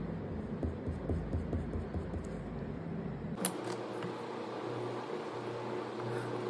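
Steady fan-like hum with soft knocks of hands handling paper on a table. About three and a half seconds in there is a sharp click, and the deep rumble drops out, leaving a lighter steady hum.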